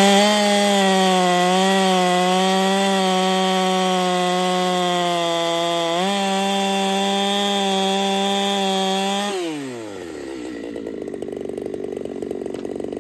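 Race-tuned Husqvarna 372-type two-stroke chainsaw at full throttle, cutting through a log and holding a steady high engine pitch that steps up slightly about six seconds in. Just after nine seconds the revs fall away as the cut finishes, and the saw drops to a lower, quieter idle.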